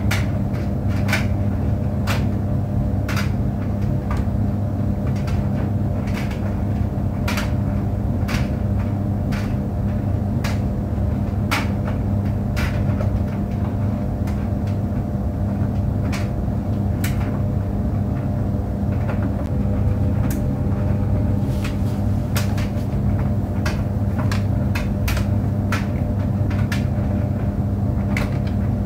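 Tumble clothes dryer running: a steady low hum with irregular sharp clicks and knocks, several times a second at some moments, as the load tumbles in the drum.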